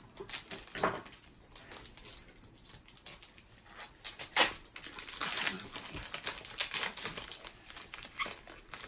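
Foil wrapper of a Topps baseball card pack crinkling and tearing as it is opened by hand, with the cards clicking as they are handled. Quick irregular crackles, the loudest a sharp crackle a little over four seconds in.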